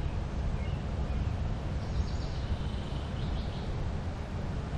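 Steady low background rumble, with a few faint high chirps around the middle.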